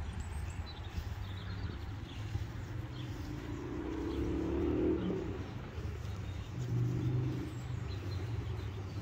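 A car engine runs with a steady low rumble that swells twice, about halfway through and again near the end. Faint birds chirp in the background.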